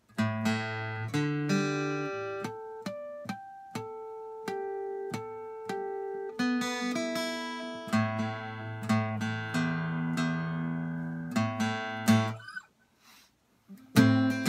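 Acoustic guitar with its D string broken, fingerpicked: single plucked notes and chords ring out and decay. Near the end there is a pause of about a second and a half, then quicker picking starts again.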